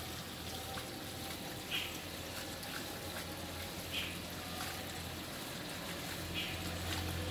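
Water from a garden hose trickling and splashing among potted plants on wet tiles. Four short high-pitched blips sound over it, about two seconds apart.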